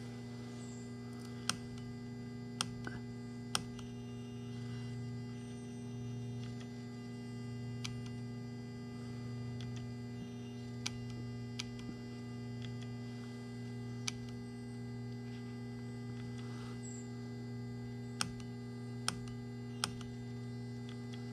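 Handlebar mode-button presses on a Kawasaki H2 SX SE+: about ten short, sharp clicks spaced irregularly, as the suspension values are stepped through. Under them runs a steady low electrical hum.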